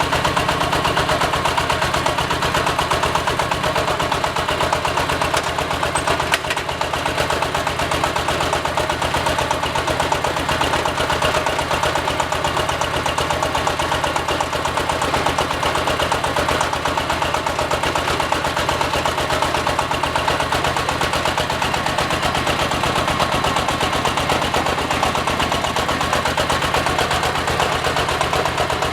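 Diesel engine of a hydraulic water well drilling rig running steadily under load, a fast, even clatter with a steady hum beneath it.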